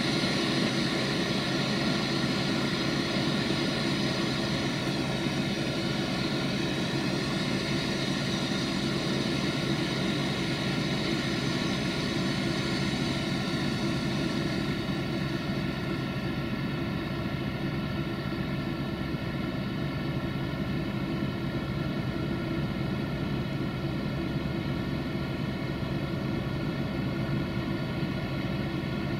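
Tractor engine running steadily under load, driving a grain conveyor that is loading corn into railway hopper wagons: a continuous engine drone. The highest hiss fades about halfway through.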